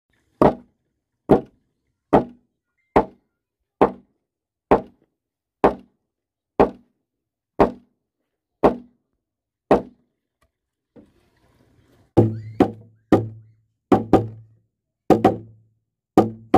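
Hammer blows on timber: eleven steady strokes about one a second. After a short pause comes a quicker run of heavier blows, about two a second, with a low boom under each.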